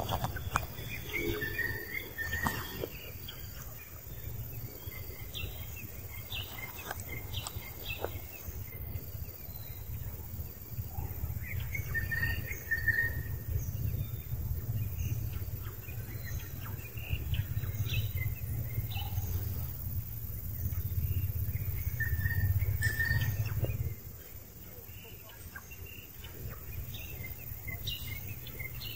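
Outdoor ambience: scattered short bird chirps over a steady low rumble, which drops away about 24 seconds in.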